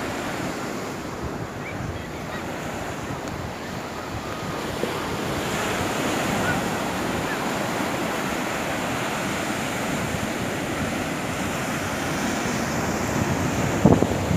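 Sea surf breaking and washing up a sandy beach, a steady rushing wash, with wind buffeting the microphone and a few stronger gusts near the end.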